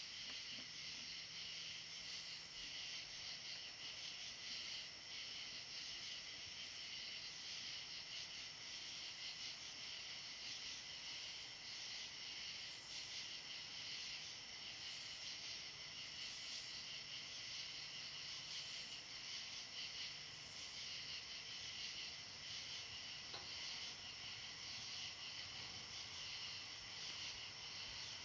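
Steady, high-pitched chorus of crickets and other night insects trilling.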